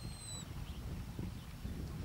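Low rumble of wind on the microphone and small waves lapping at a shingle shore, with a thin high whistle falling slightly in pitch in the first half second.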